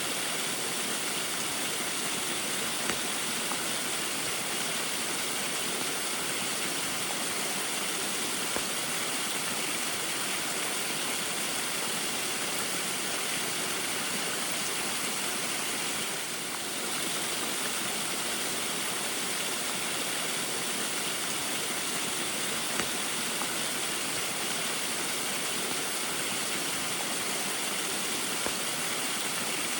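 Small waterfall splashing steadily in the rain: an even rush of falling water, with a few faint drip-like ticks and a brief slight dip in level about halfway through.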